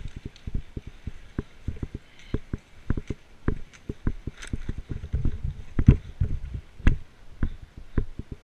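Irregular, rapid low thuds and knocks, several a second with a few sharper clicks, typical of a player moving on foot with gear, heard through a helmet-mounted camera.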